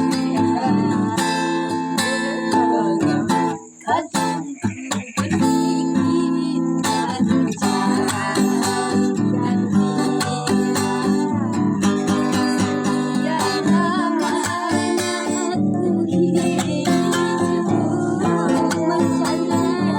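Strummed acoustic guitar playing a song with a singer's voice over it, the music breaking off briefly about four seconds in before carrying on.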